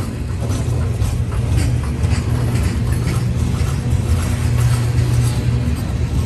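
Freight train of covered hopper cars rolling past close by: a steady low rumble of steel wheels on the rails, with repeated clicks and clacks from the wheels and cars.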